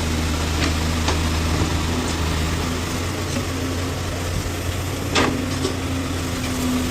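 Backhoe loader's diesel engine running steadily, with a few sharp clanks. The loudest clank comes about five seconds in and is followed by a steady higher hum.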